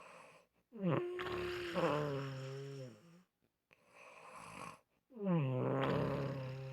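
Snoring: two long droning snores a few seconds apart, each starting with a quick drop in pitch and then holding a steady buzzing tone. A softer breath comes before each one.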